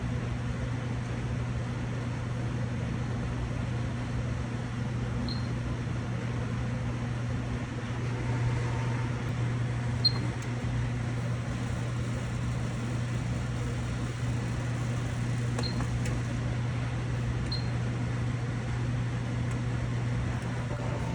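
Combination microwave oven running with a steady low hum, with four short high beeps spread through it.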